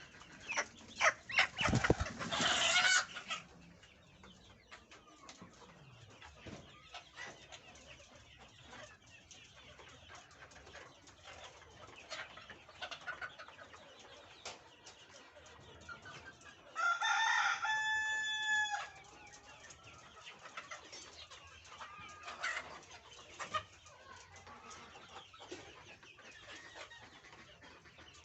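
A flock of Fayoumi chickens clucking, with scattered short clicks and a loud, noisy burst of activity near the start. About two-thirds of the way through, a rooster crows once, a single long call of about two seconds.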